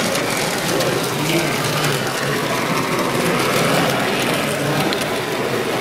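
Steady hubbub of a busy exhibition hall: distant voices blending into a continuous din, with a light mechanical whirr running through it.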